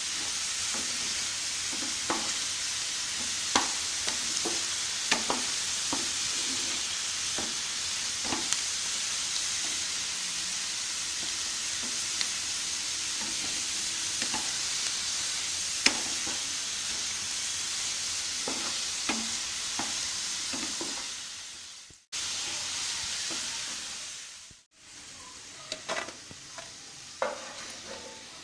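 Potato fries deep-frying in hot oil: a steady sizzle with occasional sharp clicks of a utensil stirring in the pan. Near the end the sizzle fades out twice, leaving a quieter stretch with a few more clicks.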